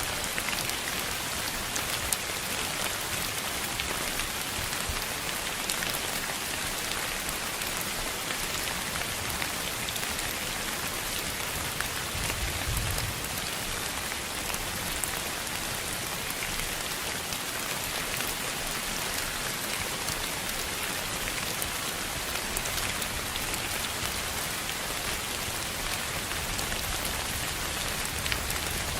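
Steady, even hiss of rain-like noise, with scattered faint ticks like drops and a brief low rumble about thirteen seconds in.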